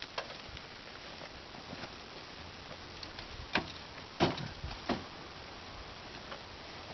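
Steady faint background hiss with a few short light knocks in the second half, about a second apart; no gunshot.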